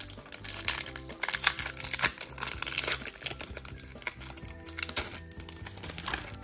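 Foil booster-pack wrapper crinkling and crackling as it is torn open and handled, over background music.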